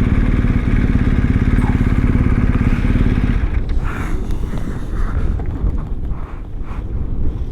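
BMW R1250's boxer-twin engine pulling steadily on the open road; about three and a half seconds in, the engine note drops away as the throttle eases, leaving rougher wind and road noise.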